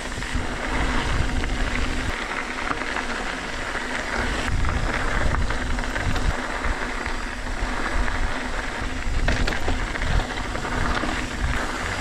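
Trek Fuel EX mountain bike rolling along a dirt singletrack covered in loose gravel. The tyres crunch over the grit, the bike rattles over small bumps, and wind rumbles on the microphone.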